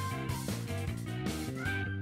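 Background music with a steady beat and a melody.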